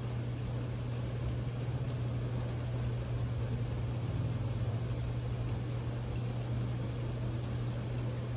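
Steady rainfall hiss under a constant low hum that is louder than the rain.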